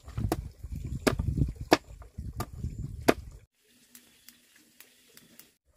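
A blade chopping in regular strokes, five sharp strikes about 0.7 s apart, which stop suddenly about three and a half seconds in, leaving only faint ticks.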